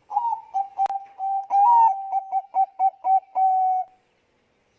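Zebra dove (Bangkok-type perkutut) cooing: one rhythmic song of about four seconds, a held coo broken into a quick run of short notes and ending on a longer note. A sharp click sounds once, just under a second in.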